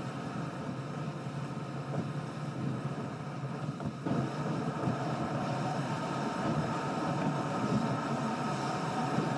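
A car's own driving sound, engine and tyres on the road, heard from inside the cabin and sped up along with the picture. It runs as a steady, dense noise and gets a little louder about four seconds in.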